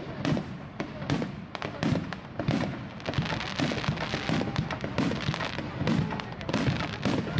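Fireworks display: aerial shells bursting in a rapid, unbroken barrage, several bangs a second, each with an echoing tail.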